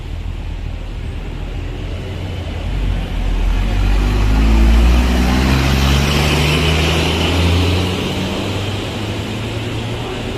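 Bus engine pulling past, a low drone that rises slowly in pitch, loudest about halfway through and then easing off, over steady road noise.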